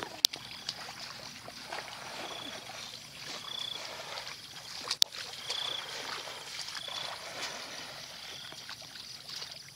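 Wading and splashing through shallow water and wet grass as woven bamboo plunge baskets are pushed into the water. Short high chirps come every second or two, and two sharp clicks stand out, one near the start and one about halfway.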